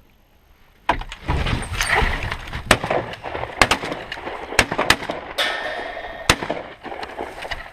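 Shotgun shots: about seven sharp cracks in irregular succession after a near-silent first second, over rustling and wind noise.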